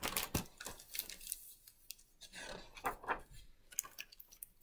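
Hardcover picture book being handled and its pages turned: a few short knocks and paper rustles.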